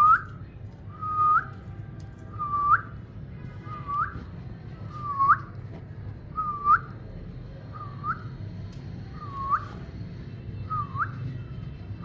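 Eastern rosella whistling a run of about ten short, clear notes at a steady pace, roughly one every second and a quarter, each note swooping sharply upward at its end.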